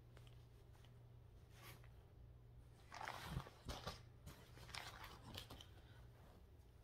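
Faint rustling and crinkling, in a few short bursts from about three seconds in, as a cross-stitch project and its bag are handled; otherwise near silence.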